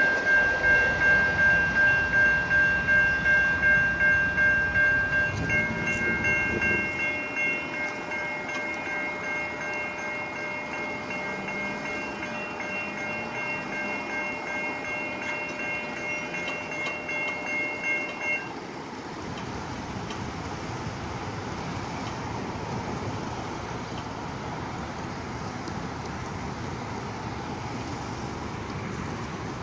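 Railway level-crossing warning bell ringing in fast, steady strokes while a passenger train rumbles past over the rails for the first several seconds. The bell stops suddenly about 18 seconds in, leaving a steady wash of road traffic and wind.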